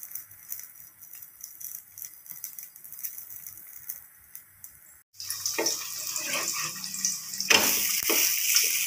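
Wheat dosa batter sizzling on a hot nonstick tawa in a little oil, with a faint crackle. About five seconds in the sizzle is suddenly louder, and a spatula scrapes under the dosa to turn it.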